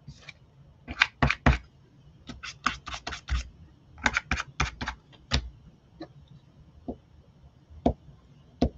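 A run of quick, light clicks and taps in irregular clusters, some rapid like typing, with short pauses between.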